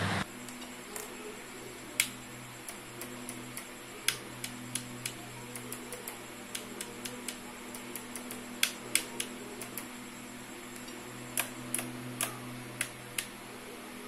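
Toggle switches on a FlySky FS-i6X RC transmitter being flipped and handled: irregular sharp plastic clicks, some in quick runs, over a steady faint low hum.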